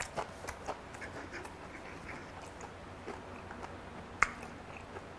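Close-mic chewing of food, with small wet mouth clicks and smacks. One sharp click comes a little after four seconds.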